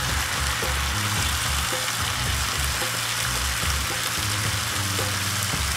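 Chicken and zucchini stir fry sizzling steadily in a hot frying pan, with soft background music under it.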